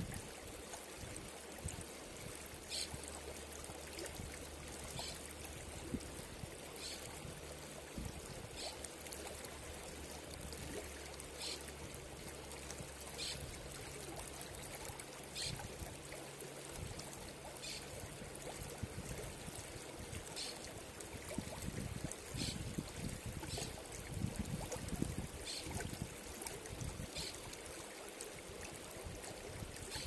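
Shallow mountain river running over and around boulders: a steady rush and ripple of water, with a short high sound recurring every second or two.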